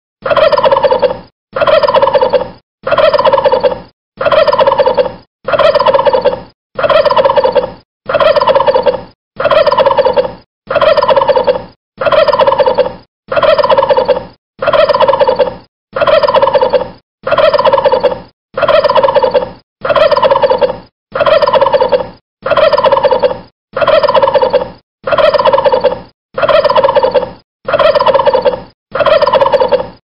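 Turkey gobbling: the same recorded gobble looped over and over, about one every 1.3 seconds, with a short silent gap between each.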